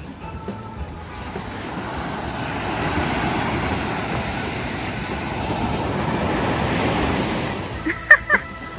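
Ocean surf breaking and washing up the beach, a rushing sound that swells, holds and fades away near the end.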